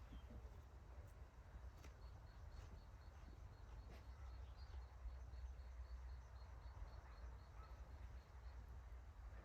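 Faint forest ambience: a small bird repeats a short, high note about four times a second over a low, steady rumble.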